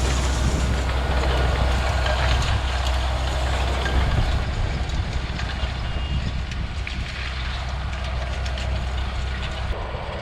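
Tractor diesel engine running with a round baler working behind it, a deep steady hum that eases a little about four seconds in.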